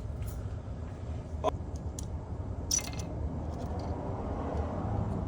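A few light metallic clicks and taps from engine parts being handled, over a steady low hum.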